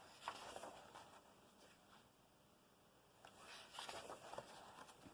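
Faint rustling and crackling of paper pages being handled and turned, in two short bouts.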